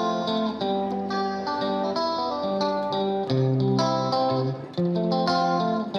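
Background music: an instrumental of plucked guitar notes.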